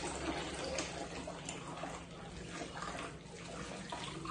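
Water running from a kitchen tap and splashing into the sink as dishes are rinsed under it by hand.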